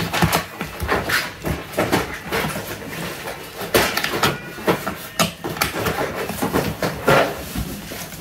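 Hard plastic parts of a toy doctor set clicking and knocking as a plastic top piece is pressed onto plastic pillars. The clicks come at an irregular pace, and a few are louder than the rest.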